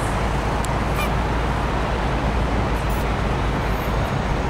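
Steady street traffic noise: a continuous low rumble with no single vehicle standing out.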